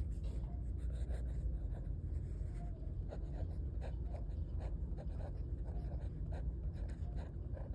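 Pencil scratching on paper in many short, quick strokes of handwriting, over a steady low rumble.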